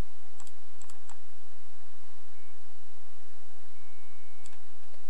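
A few light clicks of computer keys, over a steady low hum and hiss: three or four close together about half a second to a second in, then one more about four and a half seconds in.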